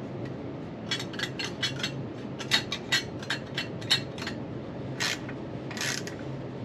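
Hand tools working on bolts of a plate on a transmission case: a run of sharp metallic clicks and clinks, then two short scraping sounds about five and six seconds in.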